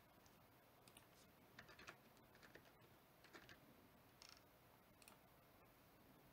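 Faint computer keyboard typing and mouse clicks: scattered single keystrokes with short gaps between them.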